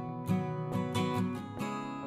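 Background music played on acoustic guitar, with chords strummed in a steady rhythm.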